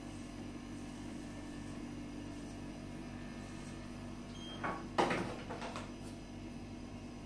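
Steady low electric hum, with a short knock about four and a half seconds in and a louder, sharp knock and brief clatter half a second later.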